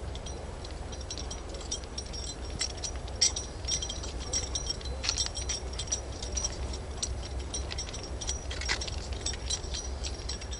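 A large flock of grackles calling: many short, squeaky chirps and clicks overlapping without a break, over a steady low rumble.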